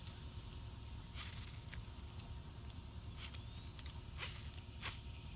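Faint outdoor ambience at the pond bank: a steady low rumble with a high, steady insect hum, broken by a handful of small, irregular clicks.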